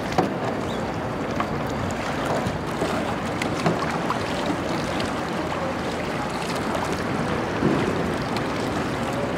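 Steady wash of wind and lapping water, with a few small splashes as a kayak paddle dips into shallow water.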